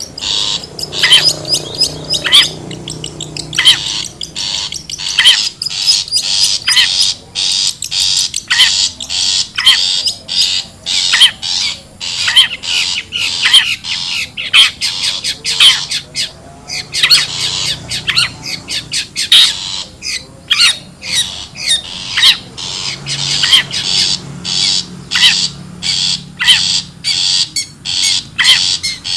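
Long-tailed shrike (cendet) calling in a rapid, continuous run of short, sharp notes, several a second. This is the bird's wild call used as a lure recording.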